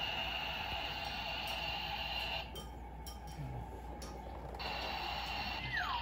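Battery-powered toy coffee maker playing its electronic brewing sound: a steady buzz with a high whine. It cuts out about two and a half seconds in, with a few plastic clicks, and comes back two seconds later. Near the end a warbling electronic tone starts.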